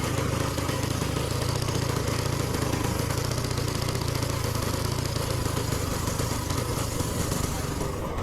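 Small single-cylinder minibike engine running steadily, with no change in speed.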